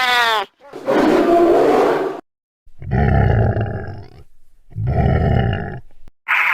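Alien gorilla sound effect: a short pitched cry, then three loud monstrous roars with silent gaps between them. The last two are deep growling roars with a high falling whine layered over them.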